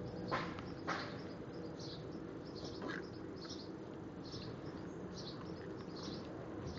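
Rottweiler puppy chewing a raw egg: a few short crunching or smacking sounds, two in the first second and one about three seconds in. Small birds chirp repeatedly in the background throughout.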